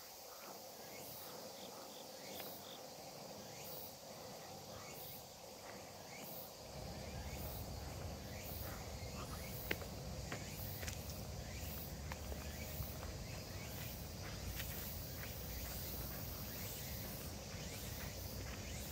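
Steady, high-pitched chorus of insects with a pulsing beat, over footsteps crunching on a gravel path. About seven seconds in, a low rumble comes in and stays.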